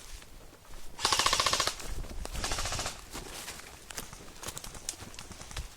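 Airsoft gun firing on full auto: a rapid burst about a second in, the loudest sound, then a second burst. Scattered single clicks follow.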